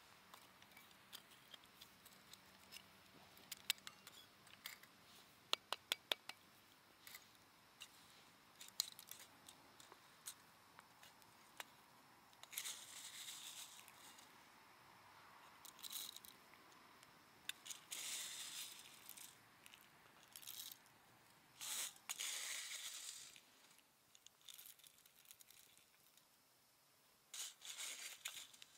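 Roasted coffee beans clicking and rattling against metal as they are handled, scooped and poured into a stainless hand coffee grinder. First comes a run of sharp separate clicks, then several short rattling pours, the last near the end.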